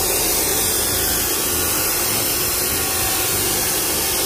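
A power tool running steadily and loudly without a break.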